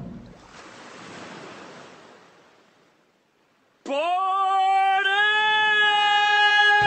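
Airplane noise fading away to near silence over the first three seconds. Then, about four seconds in, a single long held note starts suddenly with a quick upward slide and opens a piece of music.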